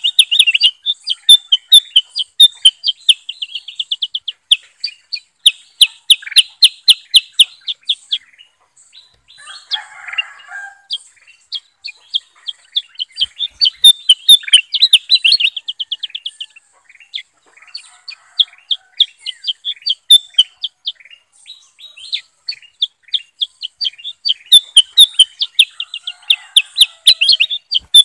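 Caged bulbuls, a kutilang emas and a kutilang sutra, singing. Their song is fast chattering runs of high chirps in bouts of a few seconds, with a quieter spell about a third of the way through.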